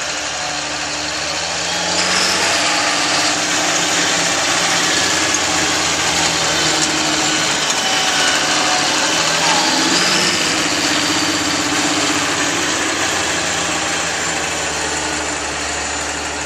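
Trail groomer tractor's engine running steadily as it levels a load of sand, growing louder about two seconds in and briefly shifting pitch around the ten-second mark.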